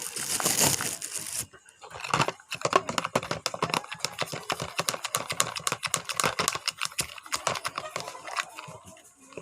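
Homemade glue slime being mixed and worked by hand, giving a quick, irregular run of sticky clicks and crackles. A short rush of noise comes at the start.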